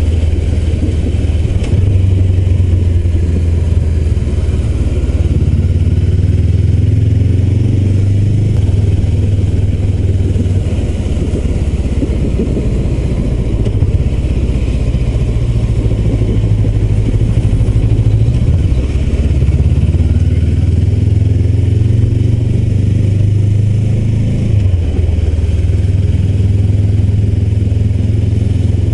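Honda CBR400R's 399 cc parallel-twin engine running under way at low town speed, its note stepping up and down a few times with throttle and gear changes.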